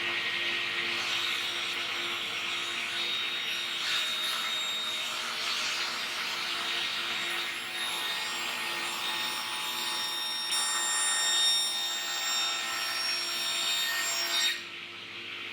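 Woodworking power tool machining a piece of timber: a steady whine with cutting noise that stops suddenly near the end.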